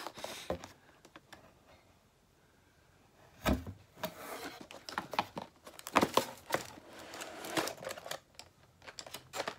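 Handling noises from a clear plastic carrying case and packaging: a single knock about three and a half seconds in, then scattered clicks and crinkling rustles as things are moved about.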